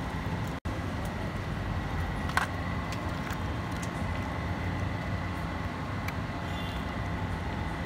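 Steady street background noise with a low rumble like passing traffic and a faint steady high tone, broken by one sharp click about two and a half seconds in.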